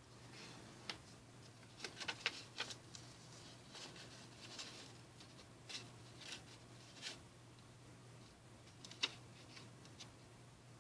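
Paper being folded and creased by hand on a wooden tabletop: scattered soft rustles and crinkles, with a sharper click about nine seconds in. A faint steady low hum runs underneath.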